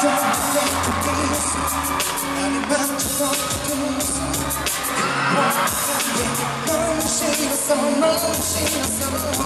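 Live K-pop concert sound: a male singer singing into a microphone over a pop backing track with a steady bass beat, with the audience screaming.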